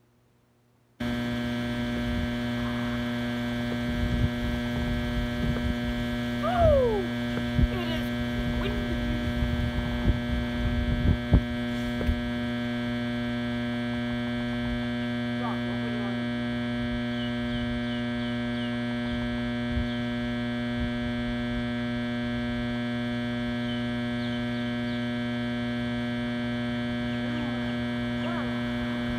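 Steady droning hum of a generator, several pitches sounding together and holding level, which the uploader blames for the spoiled audio. It comes in after a brief silent gap at the start, and a few thumps and a short falling whistle sound over it a few seconds in.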